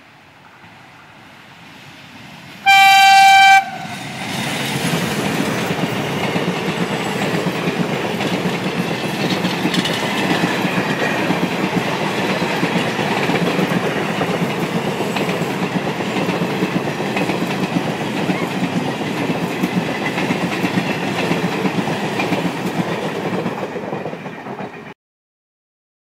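WDM3D diesel locomotive sounding its horn in one loud blast of about a second, a few seconds in. The locomotive and a long rake of passenger coaches then pass close, wheels clattering over the rail joints as the train slows for a station stop, until the sound cuts off suddenly near the end.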